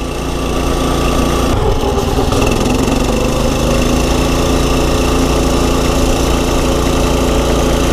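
Pit bike engine running steadily as the bike is ridden, holding an even, fairly low pitch with no revving up or down. It is an engine that the rider says won't go to full RPM, which he suspects is a rev limiter.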